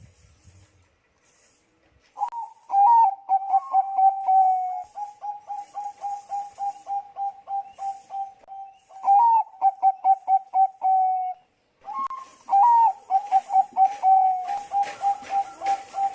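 Bangkok-bred zebra dove (perkutut bangkok) cooing: two long phrases of rapid staccato coos. Each opens with a few higher, louder notes and runs on as an even string of softer coos. The first starts about two seconds in and stops near eleven seconds, and the second starts about a second later.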